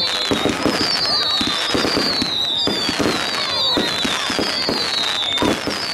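Fireworks display: a dense, rapid run of bangs and crackles from bursting shells. Over it runs a high falling whistle that repeats about once a second.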